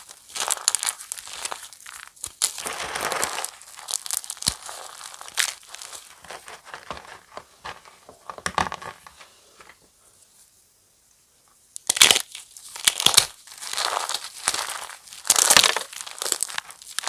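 Crisp fresh chalk blocks being crushed and crumbled, a run of sharp crackling crunches. There is a short near-quiet pause about two-thirds of the way through, then louder crunches start again.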